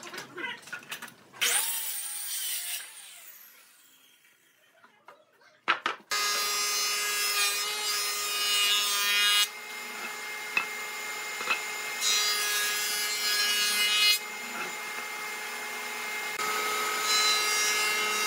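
Handheld circular saw cutting briefly through a plank, then spinning down with a falling whine. Then a combination jointer-planer runs with a steady hum, and three times a board passes over its cutter head, each pass louder and noisier while the wood is planed.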